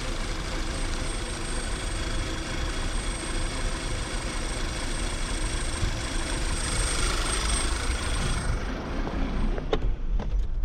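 2010 VW Tiguan 2.0 TSI four-cylinder turbo engine idling with a high hiss-whistle from a crankcase (PCV) vacuum leak, which is leaning out the mixture and causing misfires. The hiss drops away near the end, followed by a few clicks.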